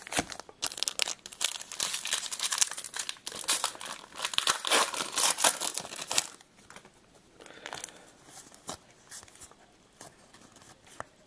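Wrapper of a 2011 Topps Update baseball card pack being torn open and crinkled for about six seconds, then quieter scattered rustles and clicks of the cards being handled.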